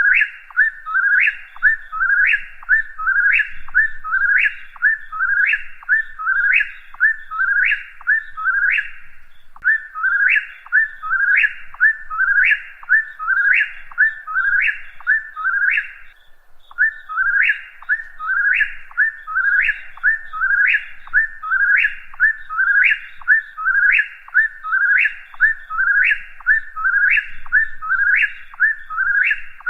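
Whip-poor-will singing its three-part "whip-poor-will" song over and over, a little more than one phrase a second, with a short pause about halfway through.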